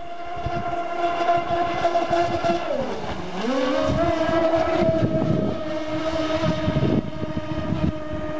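Twin brushless outrunner motors of a large RC speedboat whining at speed. About three seconds in the pitch dips sharply as the throttle is eased, then climbs straight back to a steady high whine.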